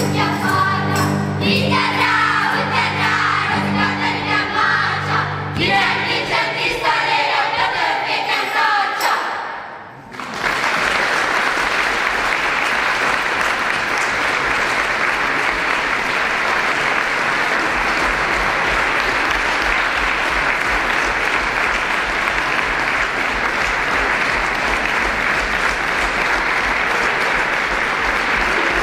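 Children's choir singing with guitar and cello accompaniment, the song ending about ten seconds in. Steady audience applause follows for the rest of the time.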